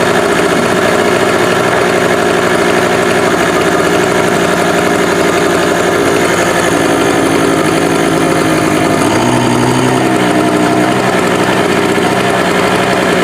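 Small Harbor Freight portable gas generator running steadily, with a fan plugged into it as a light load. Its engine note shifts briefly about nine seconds in.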